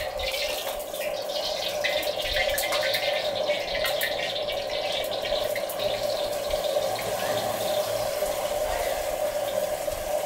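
Raw beef slices sizzling and crackling in a hot oiled wok over a lit gas burner, with a steady hum under the sizzle.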